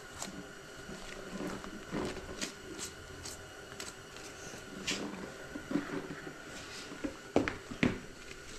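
Knife slicing through deer hide and muscle to free a front leg, with faint scattered scrapes and handling noises, and two sharper knocks near the end as the leg is worked loose.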